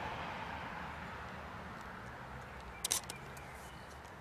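A camera shutter clicking once, a quick double click about three seconds in, over a faint steady background noise that slowly fades.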